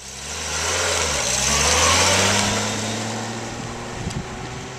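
Large touring motorcycle pulling away and accelerating, its engine note rising for about two seconds and then fading as it rides off.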